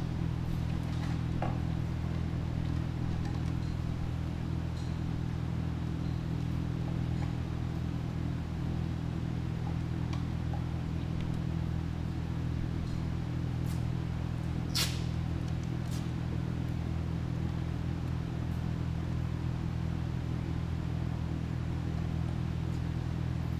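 Steady low machine hum with no change in level, with a few faint clicks over it and one sharper click about fifteen seconds in.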